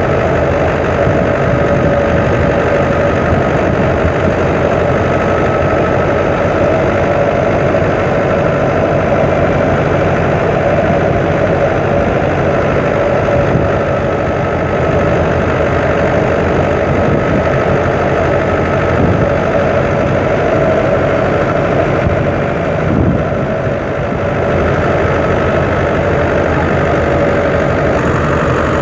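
A 640 tractor's engine running steadily while driving a wheat thresher, engine and threshing machinery together in one continuous mechanical drone with a steady whine over it. The level dips briefly about three-quarters of the way through.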